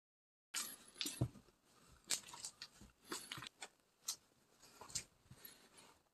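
Footsteps crunching through dry grass and weeds, with irregular crackles and snaps of twigs and stalks, starting about half a second in after a moment of silence.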